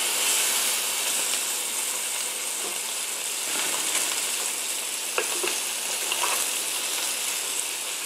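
Albacore tuna steaks searing in oil in a nonstick pan over medium-high heat, a steady frying sizzle. Metal tongs tap lightly against the pan a couple of times about five seconds in as the steaks are turned.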